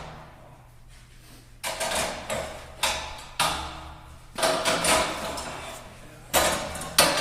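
Repeated sharp clanks and knocks, about eight in uneven pairs, as parts of a motorcycle shipping crate are unbolted and pulled off.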